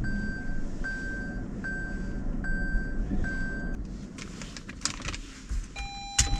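Car's in-cabin warning chime beeping five times, evenly, about once every 0.8 s, then stopping; a single lower beep follows near the end, over a low steady hum.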